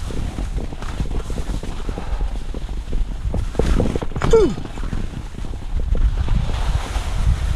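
Wind buffeting the camera microphone in a steady low rumble, over the scraping and clatter of skis running on uneven spring snow. About four seconds in comes a brief tone that falls in pitch, the loudest moment.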